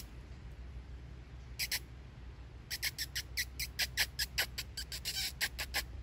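A person making short, high squeaky kissing calls to lure a monitor lizard, which reacts to them. There is a pair near two seconds in, then a quick run of about fifteen in the last three seconds.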